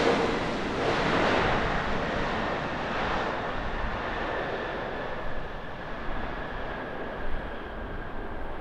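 Boeing 787-8 airliner with Rolls-Royce Trent 1000 engines on its landing rollout: the jet engine roar fades as the aircraft slows and moves away down the runway, with a steady high whine slowly dropping in pitch.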